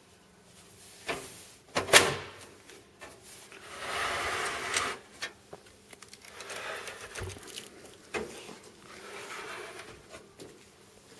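Bottom-hinged side panels of a PC case being swung up and clicked into place: a series of knocks and clicks, the loudest about two seconds in, with scraping and sliding handling noise between them.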